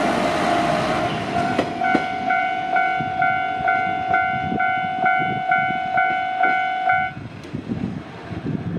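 Japanese level-crossing alarm ringing its repeated two-tone clang about twice a second, while the noise of a passing train dies away in the first second. The alarm stops about seven seconds in.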